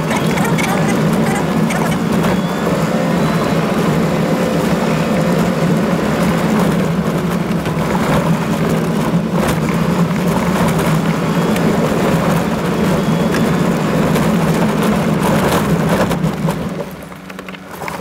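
Toyota Land Cruiser driving on a rough gravel track, heard as a steady engine drone with tyre rumble and scattered knocks and rattles over the bumps. The sound drops for a moment near the end.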